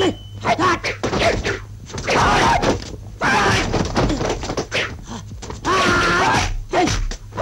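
Kung fu film fight soundtrack: fighters' drawn-out yells and grunts, several times, between sharp hit and thud sound effects.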